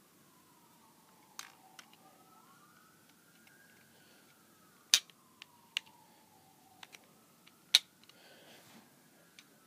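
Sharp snaps and clicks from shooting a Snapshot rubber band gun: two loud snaps about three seconds apart among softer clicks. A siren wails faintly in the background, rising and falling slowly.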